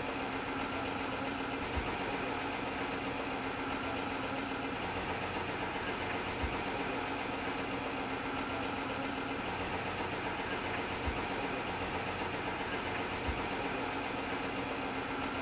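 A vehicle engine idling steadily, with a few brief low knocks.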